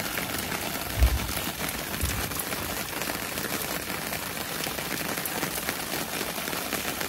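Steady rain falling during a thunderstorm, a dense run of small drop ticks over a hiss, with two brief low thumps about one and two seconds in.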